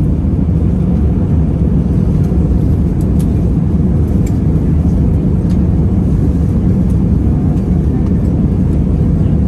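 Steady low rumble inside an Airbus A320-200's passenger cabin during the approach: engine and airflow noise, with a few faint clicks.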